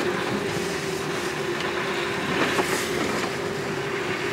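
Cabin noise of a Jeep Wrangler 4xe plug-in hybrid creeping along a rough dirt trail in electric mode with its petrol engine off. Tyre and suspension rumble runs under a steady hum, with a few small knocks and rattles over the bumps.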